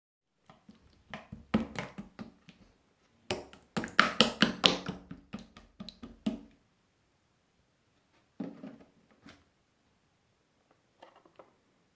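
Melted, runny opaque slime being handled by hand, making quick sticky clicks and pops in a busy run for the first six seconds or so, then a few shorter clusters later.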